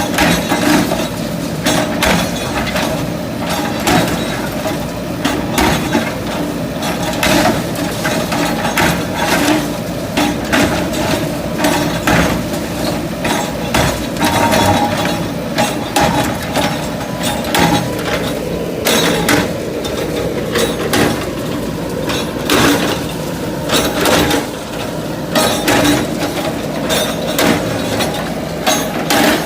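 JCB 3DX backhoe loader's diesel engine running steadily under frequent, irregular clanks, cracks and crashes of breaking masonry and debris.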